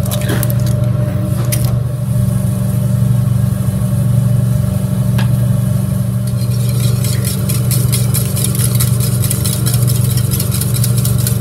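A steady low mechanical hum, with a few sharp cracks as eggs are broken near the start. From about halfway, a wire whisk beats eggs in a ceramic bowl: rapid clicking of the wires against the bowl.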